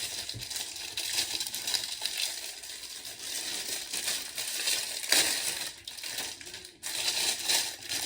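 Plastic cookie packaging crinkling and rustling as it is opened and handled.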